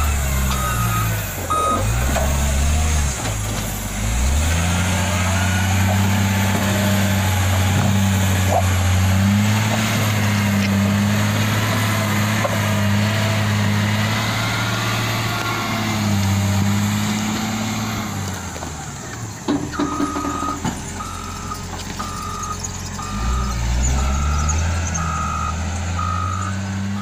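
Caterpillar wheel loader's diesel engine working hard under load as it shoves and drags a large log, its pitch rising and falling. Its reversing alarm beeps steadily at the start, then again through the last several seconds, with a few knocks just before the beeping returns.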